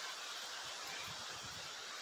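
Quiet outdoor ambience: a steady faint hiss, with a few soft low thuds about a second in.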